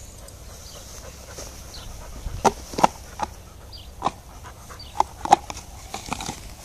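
An adult Australian Shepherd and a puppy playing: panting, with about seven short, sharp sounds in the second half.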